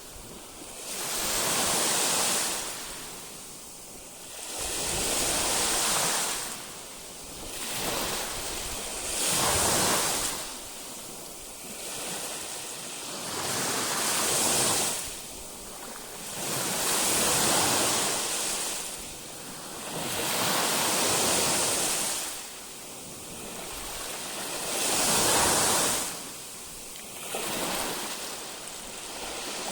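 Baltic Sea waves breaking and washing up the shore, a swell of surf every few seconds, about nine in all, with some wind on the microphone.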